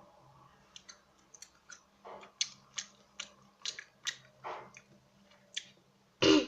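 A person chewing a piece of canned seafood in oil, close to the microphone: a string of small wet mouth clicks and smacks a few times a second. A brief voiced sound comes near the end.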